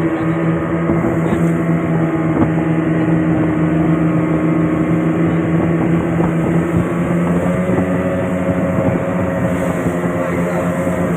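Engine running steadily at constant speed, its pitch rising slightly about seven seconds in.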